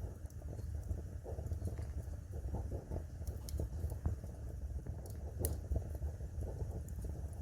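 Wood fire burning in a fireplace: a steady low rumble of flames with irregular crackling and a few sharp pops.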